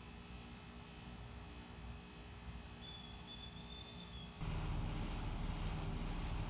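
Outdoor ambience with a steady high insect drone and a few faint, thin whistled bird notes. A little over four seconds in, the sound cuts abruptly to louder, rougher noise.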